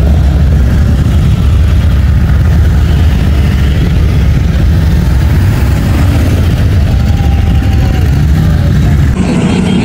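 Many motorcycle engines rumbling together as a parade of bikes rides past, some rising and falling in pitch as riders open the throttle. The sound changes abruptly about nine seconds in.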